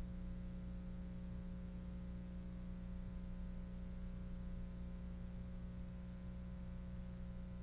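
Steady electrical mains hum with faint hiss, unchanging throughout, with no impacts or machinery to be heard.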